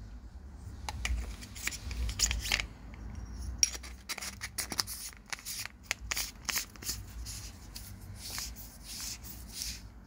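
Handling noise from loading a battery carrier of Fenix 3500mAh cells into an Acebeam flashlight and twisting its body tube on: irregular clicks, knocks and rubbing of metal parts against each other and against hands.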